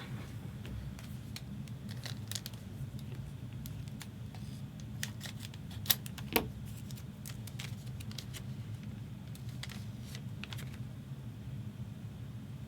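Trading cards being handled and flipped through, with scattered light clicks and ticks as card edges snap and slide against each other, and two sharper clicks close together about six seconds in.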